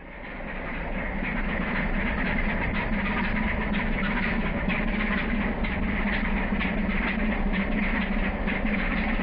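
426 Hemi V8 with dual Flowmaster exhaust idling steadily, heard from behind the car; it fades in over the first second or so.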